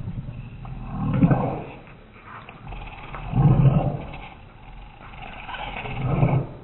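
A golden retriever growling over its bowl of kibble, slowed down so the growls come out deep and drawn-out like a roar. Three swelling growls come about two and a half seconds apart: the dog is guarding its food from the small dog beside it.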